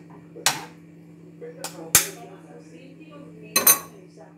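About five sharp taps and clinks of a metal spoon and eggshell against a nonstick frying pan, the loudest about two seconds in and a quick pair near the end, over a steady low hum.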